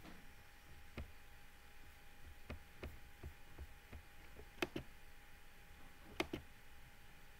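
Quiet room tone with a faint steady hum and scattered small clicks, the two sharpest a little past halfway and near the end.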